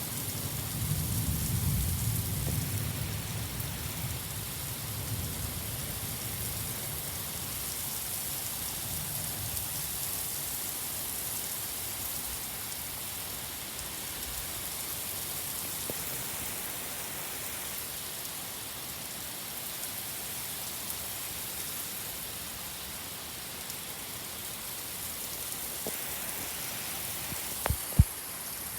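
Steady rain falling in a thunderstorm, with a low rumble of thunder in the first few seconds. About a second before the end, two sharp knocks in quick succession stand out as the loudest sounds.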